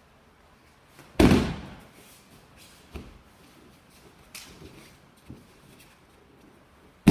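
Aikido breakfalls on a mat: a body lands hard with a loud thud about a second in. A few lighter thuds follow, and another loud landing comes at the very end.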